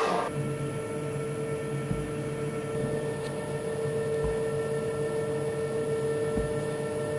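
Long thin rolling pin rolling over thin baklava dough sheets on a marble table, a steady low rumble with a few soft low thumps about every two seconds, over a constant hum.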